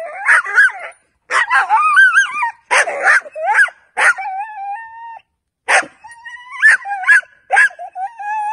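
Puppy barking in a rapid string of high, sharp yaps, broken by long drawn-out whines about four seconds in and again from about six seconds on. This is an early bark-on-command exercise, with the puppy barking at a tug toy held out of reach and away from its handler.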